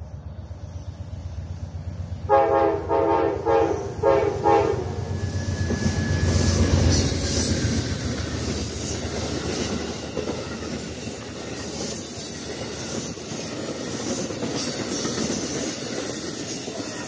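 A passenger train approaching and passing at speed. Its locomotive sounds the horn in a few blasts a couple of seconds in, then the stainless-steel passenger cars rush by with a rapid clickety-clack of wheels over the rail joints.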